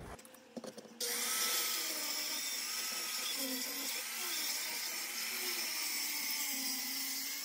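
Circular saw cutting through the stucco wall into the wood framing behind it, starting about a second in: a loud steady whine with gritty noise, its pitch wavering up and down as it runs.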